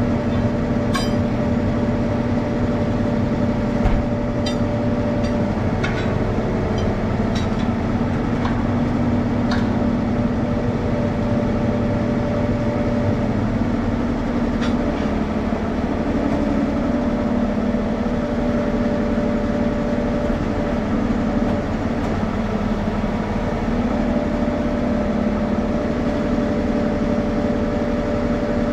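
An engine idling steadily at a constant pitch, with a few short metallic clicks and taps in the first ten seconds and one more about halfway through.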